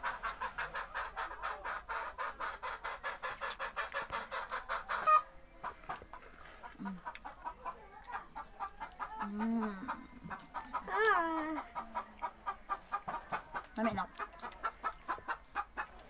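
Chickens clucking in a fast, even run of about six clucks a second. The run breaks off with a sharp knock about five seconds in, then the clucking goes on more faintly, with a louder call about eleven seconds in.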